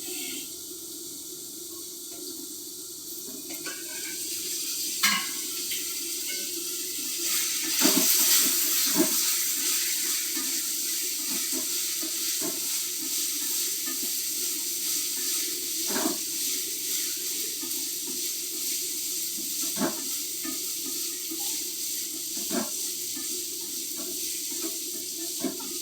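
Water running steadily, like a kitchen tap, getting louder a few seconds in, with a few short knocks or clinks now and then.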